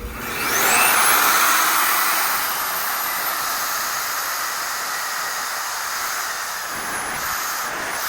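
Magnetic drill starting up, its motor whining up in pitch over the first second, then running steadily under load as it bores a hole in steel C-channel.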